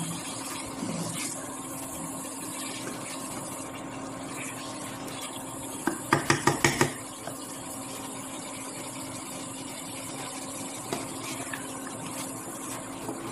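Potato and tomato masala frying in a pan with a steady sizzle. About six seconds in, a cooking spoon knocks quickly against the pan about six times.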